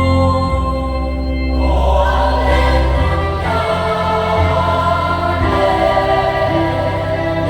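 Choir singing a Vietnamese Catholic Easter hymn with instrumental accompaniment and steady bass notes. The choir comes in about two seconds in.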